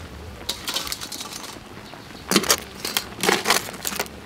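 Metal tongs clinking against a steel wok and blue crab shells clattering together as the cooked crabs are tossed. There is a short run of clinks about half a second in, then a louder, busier run from about two seconds in.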